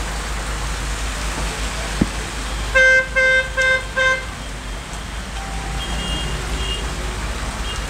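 Rain falling steadily on a wet street, with a vehicle horn giving four short honks in quick succession about three seconds in.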